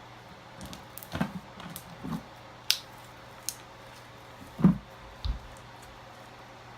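Slime being squished and worked by hand: irregular wet squelches and sticky clicks, the loudest about two-thirds of the way through.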